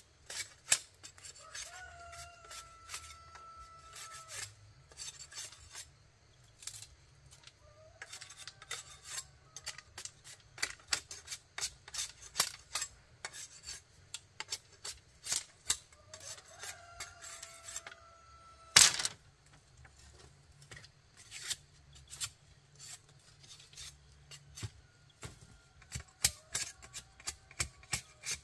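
Quick, irregular rasping scrapes with sharp clicks, as of a hand tool working against a hard surface, and one loud knock about 19 seconds in. A held, pitched call sounds four times in the background, each about two seconds long.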